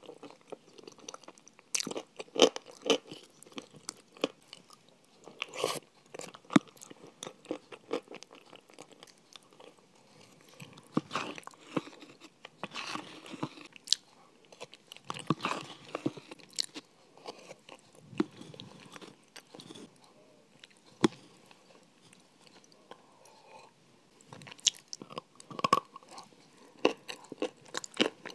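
Close-miked biting and chewing of a crunchy white food eaten off a metal spoon: irregular sharp crunches and chewing sounds, some bites much louder than others.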